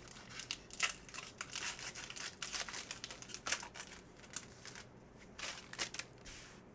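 Foil trading-card pack wrapper crinkling and tearing as it is opened and handled, a run of irregular rustles that die away near the end.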